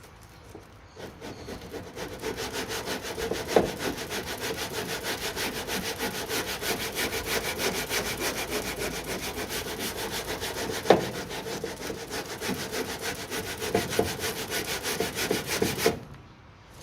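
Hand-sanding cured body filler with an 80-grit Abranet mesh abrasive on a sanding block: quick back-and-forth rasping strokes, about four to five a second, starting about a second in and stopping near the end, with a couple of sharper knocks along the way.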